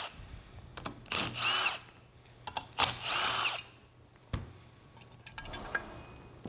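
Cordless drill backing bolts out of a Saginaw power steering pump's bracket in two short bursts, the motor whine rising and falling each time. This is followed by a metallic click and light rattling of the loosened parts.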